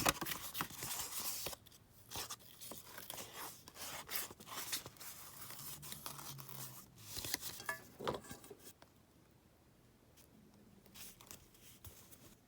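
Paper being torn and handled: a dense rustle for the first second and a half, then scattered crinkles and small taps, dying down after about nine seconds.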